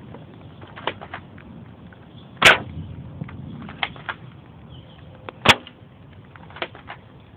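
BB gun firing two sharp shots about three seconds apart, with fainter clicks in between.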